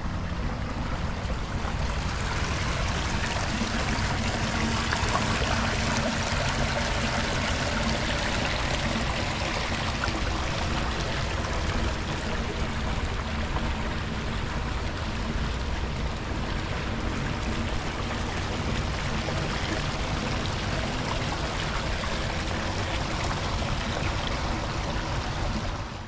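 Water of a stream running steadily, an even rushing noise with a low rumble underneath.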